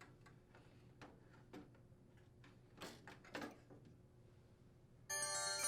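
Faint small clicks and scrapes of light bulbs being twisted out of their sockets in a range vent hood, the loudest two about three seconds in. Near the end a steady background music tone comes in.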